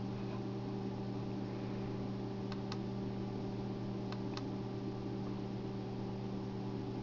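Steady low electrical hum, with two pairs of faint computer-mouse clicks about two and a half and four seconds in.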